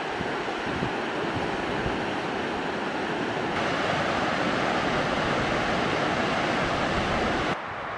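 Fast mountain river rushing over rocks, a steady dense rush of water. The rush turns brighter about three and a half seconds in, then drops away abruptly near the end.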